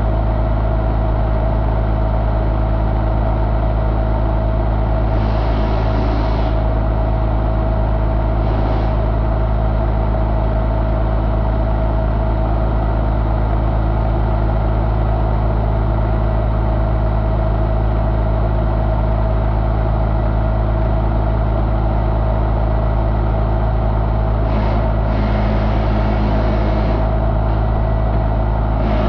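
1985 Ford 1.6-litre four-cylinder engine running steadily at idle, with an even, unchanging hum.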